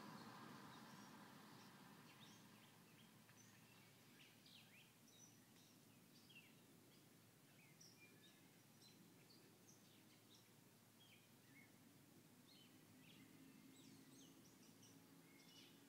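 Faint birds chirping in many short, high calls over near silence. The low exhaust sound of a departing 2000 Monte Carlo SS, fitted with a Thrush glasspack, dies away over the first two or three seconds.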